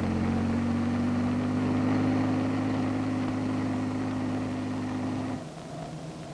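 Light helicopter's piston engine and rotor running with a steady drone, rising slightly in pitch in the first two seconds. The drone cuts off suddenly about five and a half seconds in, leaving a faint hum.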